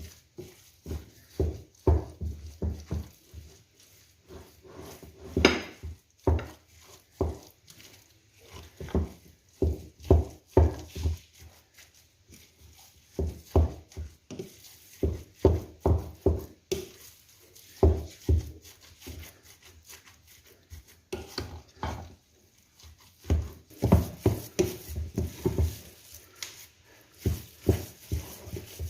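Hands kneading and squeezing a wet ground-meat meatball mixture in a bowl: irregular squelches and soft slaps, about one or two a second.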